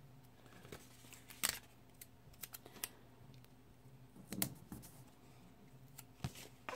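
Paper stickers being peeled and pressed by hand onto a planner page: a few soft, scattered clicks and paper rustles.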